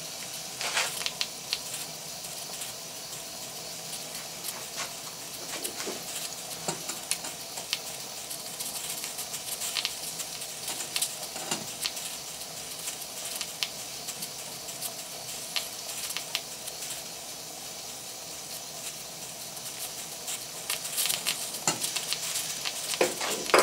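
Stuart Progress single-cylinder model steam engine running fast on live steam with its valve wide open: a steady hiss of steam with scattered crackling spits of water and condensate, thickening near the end.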